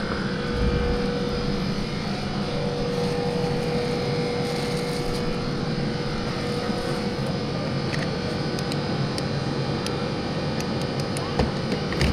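Steady machine drone with a constant hum, strongest in the first half, over a low rumble; a couple of light knocks near the end.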